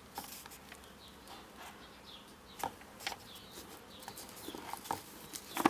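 Pages of an old hardback book being handled and turned, a few short paper rustles and taps, the loudest near the end, over faint bird chirps in the background.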